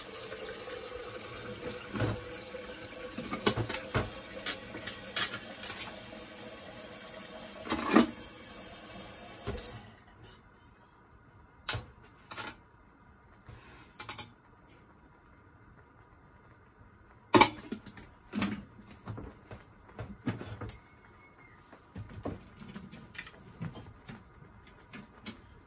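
Kitchen tap running steadily for about ten seconds, then shut off. After that come scattered clicks and knocks of containers being handled.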